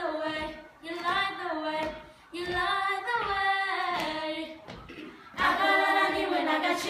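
A group of girls singing together without accompaniment, in sung phrases with short breaks between them; the singing grows louder near the end.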